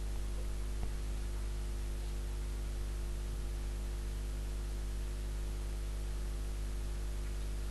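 Steady electrical hum with hiss, an unchanging low buzz like mains hum picked up by the recording setup.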